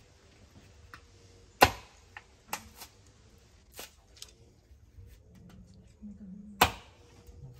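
Machete chopping a coconut's husk: sharp hacks at irregular intervals, about seven in all. The loudest comes about a second and a half in, and another strong one near the end.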